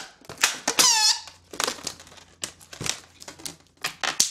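Latex modelling balloons squeaking and rubbing against each other as they are twisted by hand, with one clear squeak about a second in.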